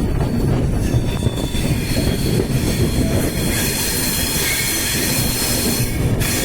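Train running on the rails: a steady low rumble, with a thin high-pitched squeal of wheels joining about a second in and dying away near the end.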